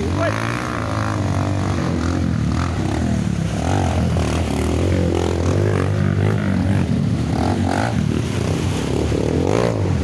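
Several trail dirt-bike engines running and revving, their pitch rising and falling again and again, as the bikes ride through a shallow river, wheels splashing through the water.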